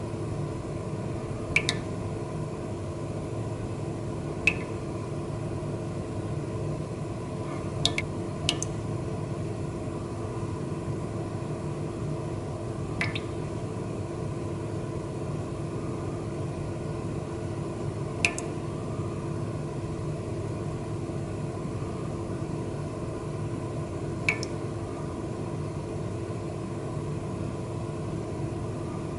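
A steady low hum with several held tones, broken by sharp clicks about eight times at irregular spacing, two of them close together about two seconds in.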